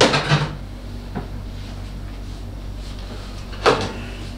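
Kitchen cupboard doors and drawers being opened and shut: a knock at the start, a light click about a second in, and another knock near the end, over a steady low hum.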